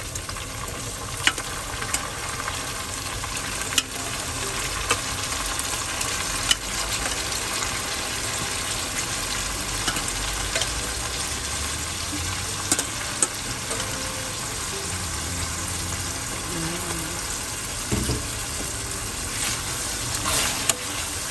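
Raw chicken pieces sizzling as they fry in hot oil with sautéed garlic and onion in a wok, with a few sharp knocks as pieces drop in and the spatula strikes the pan.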